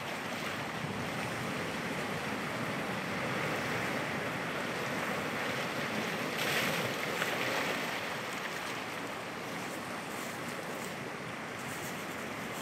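Sea surf washing against a rocky shore, a steady rush of noise that swells a little about halfway through, with wind on the microphone.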